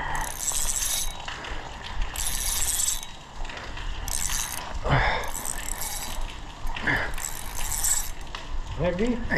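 Spinning reel cranked in about five short bursts, each under a second, its gears whirring and clicking as a hooked fish is wound in under load.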